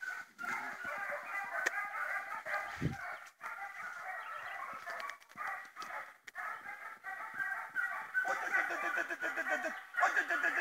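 A pack of Serbian hounds giving tongue on a hare's trail: many overlapping baying calls in a continuous chorus, fuller and louder near the end as deeper voices join in.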